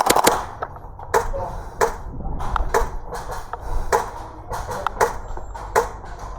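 A run of sharp knocks and clacks at uneven gaps of about half a second to a second, the loudest pair right at the start, over a low rumble.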